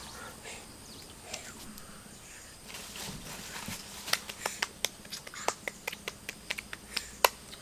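A run of sharp, irregular clicks and cracks starting about three seconds in, several a second, with the loudest near the end.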